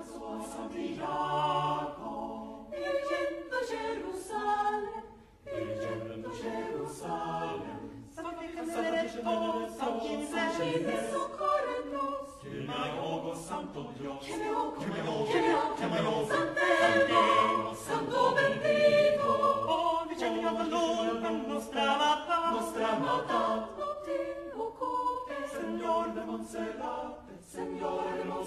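Mixed chamber choir of men and women singing a cappella in several parts, unaccompanied by instruments.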